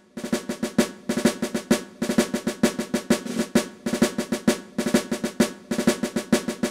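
Intro music: a fast, driving drum-and-percussion rhythm with snare hits, over a held low note.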